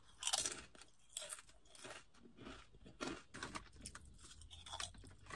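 Potato chips crunching as they are bitten and chewed, in a string of short, irregular crunches, the first bite the loudest.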